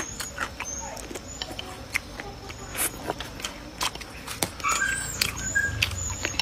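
Close-up eating sounds: wet chewing and mouth clicks while a woman eats, with chopsticks tapping the dish. A few short high chirps sound in the background about two-thirds of the way through.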